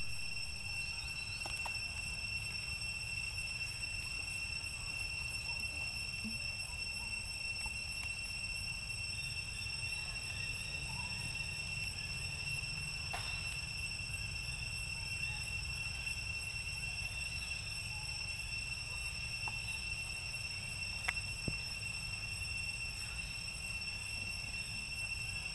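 Steady, high-pitched insect drone: one unbroken tone with fainter overtones above it, over a low rumble and a few faint clicks.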